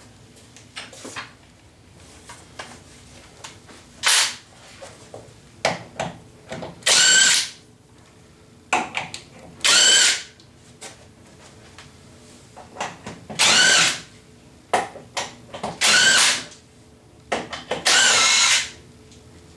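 Cordless power drill or driver run in five short whining bursts of about a second each, spinning off the wheel nuts of an old Honda ATV, with short clicks and knocks of handling in between.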